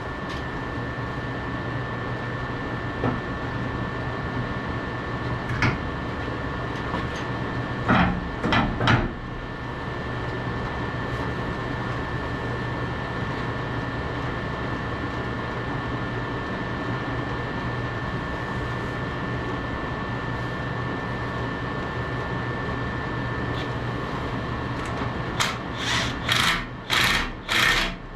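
John Deere 170 skid steer's engine running steadily just after a cold start. A few louder bursts come about eight seconds in, and a run of loud bursts, about two a second, starts near the end.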